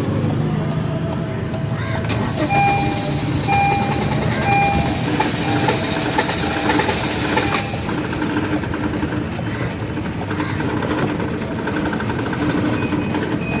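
Honda City's four-cylinder petrol engine running just after being started, misfiring. Three short beeps about a second apart sound a few seconds in, and a hiss stops suddenly about halfway through.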